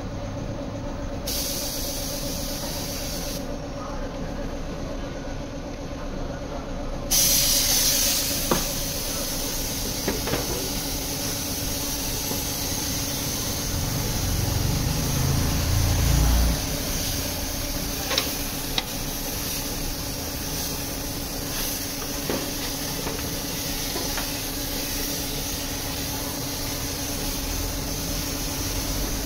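Compressed-air gravity-feed paint spray gun hissing as it sprays paint: a short burst about a second in, then steadily from about seven seconds on. A steady low hum and a few clicks sit underneath.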